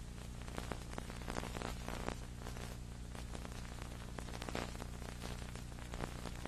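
Steady crackling static over a low electrical hum, with no programme sound: an audio dropout on the old tape recording.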